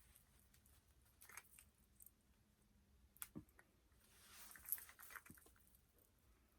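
Faint handling sounds of hands working on a doll's hair: a few soft rustles and small clicks, the longest rustle about two-thirds of the way through.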